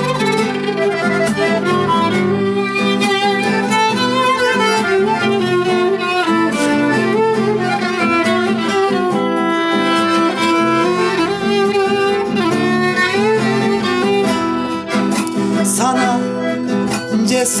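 Solo violin playing a bowed melody over a guitar accompaniment, an instrumental passage of a Turkish song.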